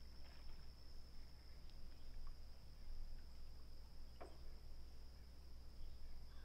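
Faint, steady high-pitched drone of an insect chorus at dawn, with a low rumble underneath and one short call or splash about four seconds in.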